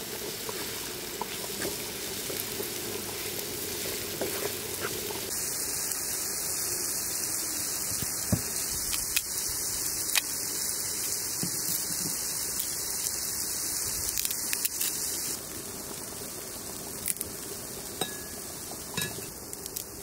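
Onions sizzling as they fry in a pan, a steady hiss that eases off about three-quarters of the way through, with a few sharp crackles of papery garlic skin being peeled.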